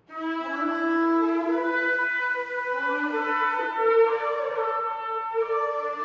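Shofar (ram's horn) blast starting abruptly after a short silence and held throughout, a raw brassy tone that steps back and forth between a lower and a higher note.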